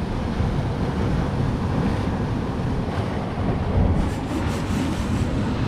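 Wind rumbling on the microphone over surf washing among shoreline boulders, with a short stretch of higher hiss about four seconds in.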